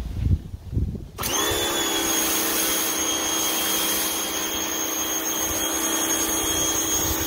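A few low knocks, then about a second in a Craftsman 1700 PSI electric pressure washer's motor kicks on as the trigger is squeezed. It spins up with a brief rise in pitch and runs steadily under load, with the hiss of the water jet spraying from the 40-degree nozzle onto concrete.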